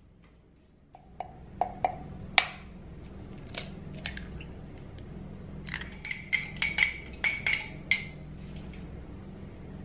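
A metal spoon stirring in a ceramic mug, clinking against its side in a quick run of ringing clinks about six to eight seconds in, after a few sharper knocks near the start. A steady low hum runs underneath.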